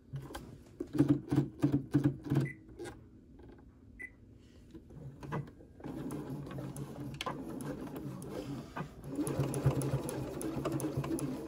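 Domestic electric sewing machine top stitching a zipper tab: a few slow, separate stitches, a short pause, then running steadily from about six seconds in and louder and faster from about nine seconds.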